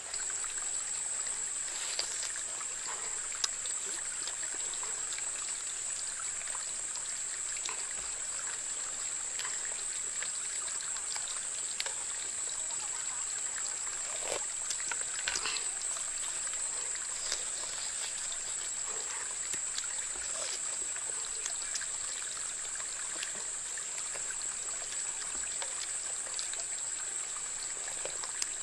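Someone eating chicken and sipping soup from a spoon: scattered small clicks and slurps over a steady high-pitched hiss.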